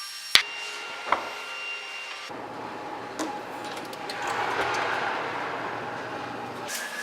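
Kitchen handling noises: two sharp knocks in the first second or so, then a few seconds of rubbing or scraping that swells in the middle and stops near the end.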